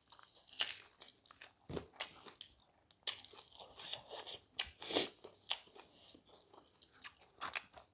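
Close-miked chewing and crunching of cooked chicken gizzard and liver: irregular wet smacks and crisp clicks, a few a second.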